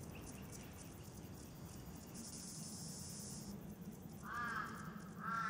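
Dry-country ambience: insects chirring high in on-off spells, then a crow cawing twice near the end.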